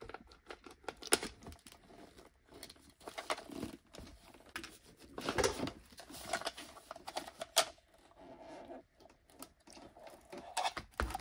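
Irregular clicks, scrapes and rustles of hand-working plastic pump parts, as the power cord of a Liberty Pumps Ascent macerator pump is pulled through its grommet and the assembly is taken apart. A few louder scrapes come around the middle.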